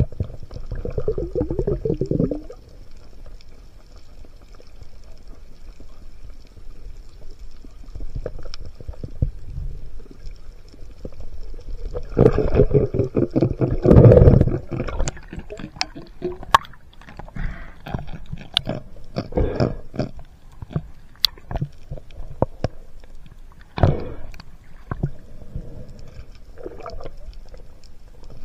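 Underwater sound picked up by a camera in the sea: water swishing and gurgling around the housing, with many scattered sharp clicks. There is a louder stretch of bubbling and clicking around the middle.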